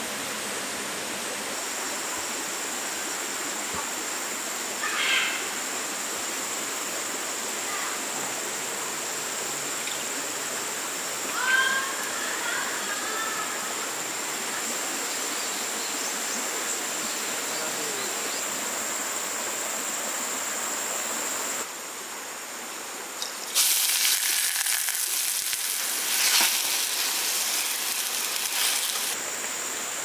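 Rainforest ambience: a steady rush of flowing river water with a steady high whine over it, and two short chirps about five and eleven seconds in. After a brief dip about two-thirds of the way through, a louder crackling hiss takes over for several seconds.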